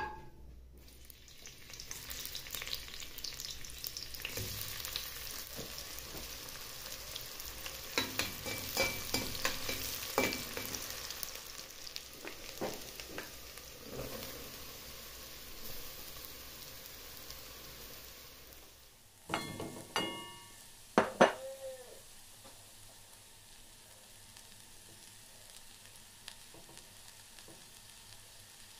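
Vegetables frying in hot oil in a pot, grated carrot among them: a steady sizzle with the scrapes and clicks of stirring. It cuts off abruptly about two-thirds of the way through, and a few sharp clinks follow, one ringing briefly.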